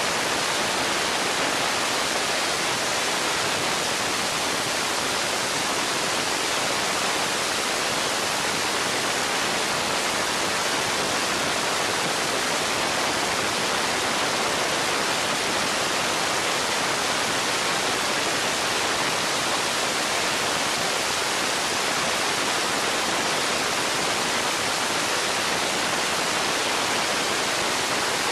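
Steady rushing wind noise over an onboard camera microphone on an open-wheel race car at speed. It is an even hiss with no engine pitch heard through it.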